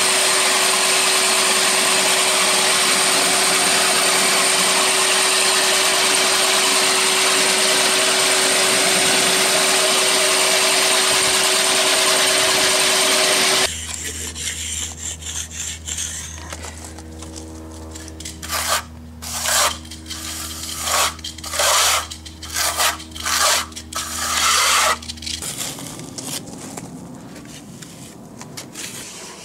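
EDCO concrete floor grinder running steadily and loudly, with a constant whine over its grinding noise. It cuts off abruptly about 14 seconds in, leaving a low hum and a string of irregular scraping strokes of a hand trowel spreading overlay on concrete.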